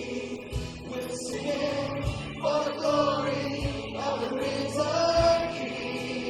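Church worship song: several voices singing a slow melody over a band, with a low drum beat about every one and a half seconds.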